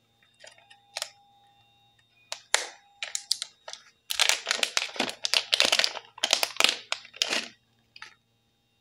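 Crinkling of a metallised antistatic bag as it is handled and pulled open: scattered rustles at first, then a dense run of crackling from about four seconds in until near the end.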